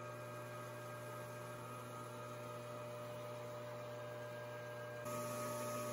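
Lathe's electric motor running with a faint, steady hum, a little louder from about five seconds in.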